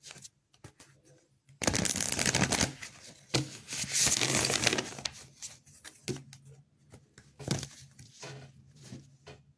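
A deck of oracle cards being shuffled by hand: two runs of rustling about two and three-and-a-half seconds in, then a few lighter scattered card taps.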